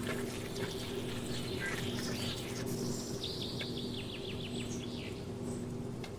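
A bird singing a quick trill of about ten short falling notes midway, over a steady low hum and a noisy outdoor background.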